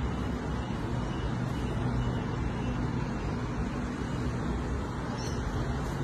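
Steady background din of distant road traffic, with one short faint high chirp about five seconds in.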